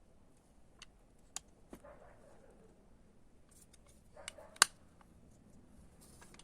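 Scattered small metallic clicks and taps from the internal parts of an old mortise lock being handled and pushed into place, with one sharp click about four and a half seconds in.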